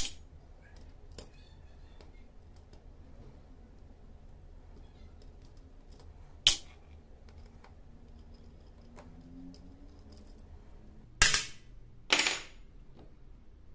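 Sharp metal clinks: four loud ones and a fainter one, the last two longer and ringing, about a second apart near the end. Small screws are being taken out of a rusty air stapler's top cap and set down on a hard surface.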